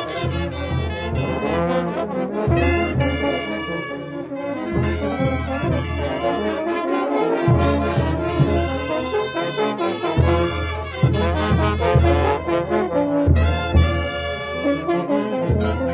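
Bolivian brass band playing carnival dance music: trumpets and trombones over a pulsing low bass.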